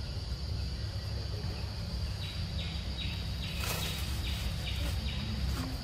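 Tropical forest ambience: a steady high insect drone, with a run of about eight short, evenly spaced chirps in the middle and a brief rustle of leaves about halfway through.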